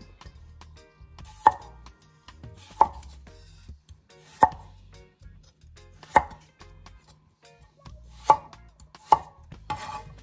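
Large kitchen knife cutting raw potatoes into wedges, each stroke ending in a sharp knock of the blade on a wooden cutting board. About seven strokes, one every second or two.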